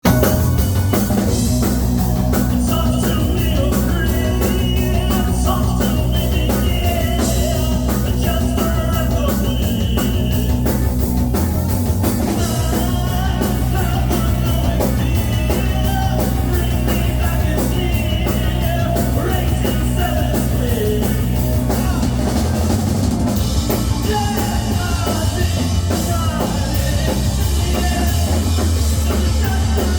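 Rock music played by a band, with a drum kit keeping a steady beat and a voice singing over it.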